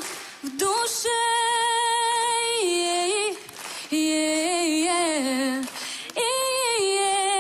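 Background music: a female voice singing long held notes in phrases, with short breaks between them.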